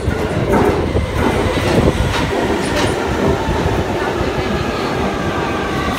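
Victoria line 2009 Stock tube train running into the platform, a steady loud rumble with sharp clicks from the wheels in the first few seconds and a faint whine in the second half.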